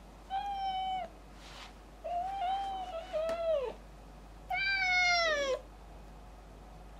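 British Shorthair cat meowing four times, the middle two close together. The last meow is the longest and falls in pitch at its end.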